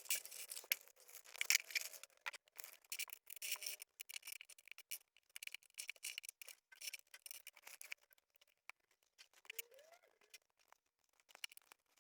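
Faint crinkling and clicking of LEGO parts bags and box contents being handled, busy for the first half and only scattered clicks later.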